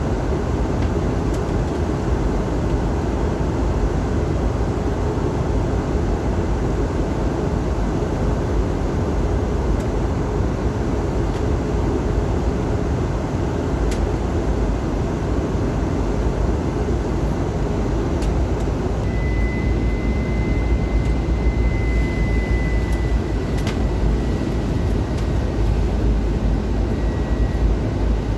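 Steady cabin roar of an Airbus A320 in descent, airflow and engine noise heard from inside the passenger cabin. A faint high, steady tone joins it about two-thirds of the way through and fades near the end.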